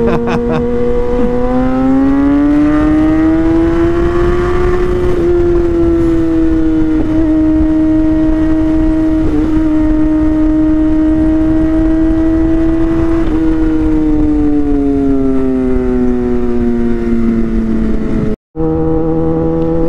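Kawasaki ZX-10R sportbike's inline-four engine running at speed. Its pitch rises for about three seconds, holds steady for a long stretch, then eases slowly down. The sound cuts out for a moment near the end.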